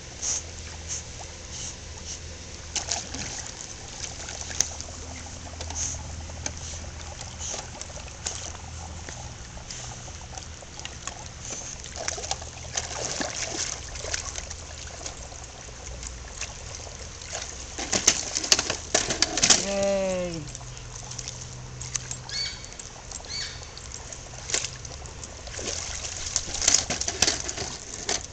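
Water splashing and sloshing with irregular knocks and clatter as a dog wades in shallow pool water and drags a hard plastic toddler ride-on toy out onto stone pavers. A short falling squeak sounds about two-thirds of the way through.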